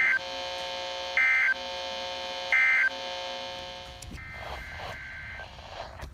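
Weather radio sending the Emergency Alert System's digital end-of-message code: short, loud, buzzy data bursts about 1.4 s apart, the tail of one and then two more. A steady electrical buzz of several pitches runs beneath them. After the third burst a fainter steady tone with some noise follows for about a second.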